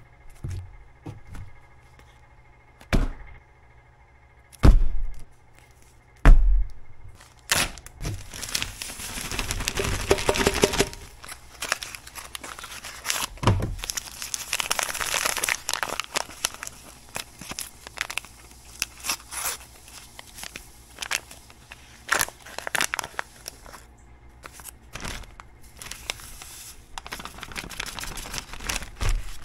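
Carp pack bait being made by hand from sweet corn, breadcrumbs and jello powder: three heavy thunks in the first seven seconds, another about thirteen seconds in, and long stretches of dense rustling and clicking as the ingredients are handled and mixed.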